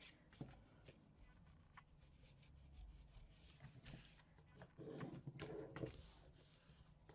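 Faint rustling and sliding of paper being shifted into position by hand, with a few light ticks and taps.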